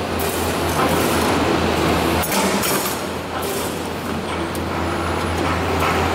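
3D CNC wire bending machine running: a steady hum and mechanical whir, with a few sharp metallic clicks, one clear one a little past two seconds in.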